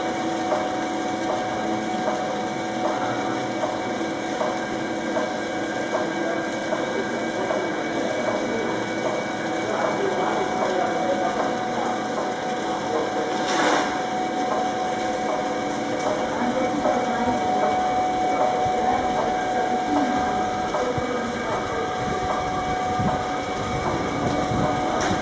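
Laboratory cone ball mill running: a steady hum from its electric motor and drive, with a continuous light clatter from inside the turning drum. A short hiss-like scrape comes about halfway through.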